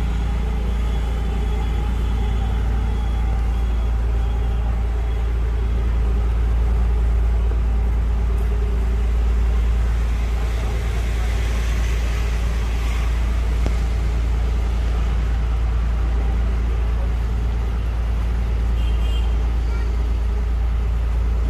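Engine of a houseboat running steadily: an even, unbroken drone with a strong low rumble underneath.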